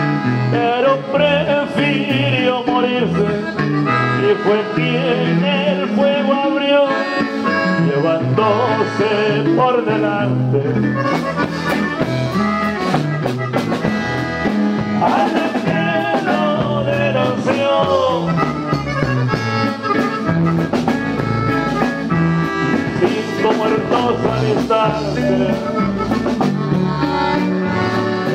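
Live norteño music: a button accordion plays the lead melody over a strummed bajo sexto, with a steady low bass line beneath.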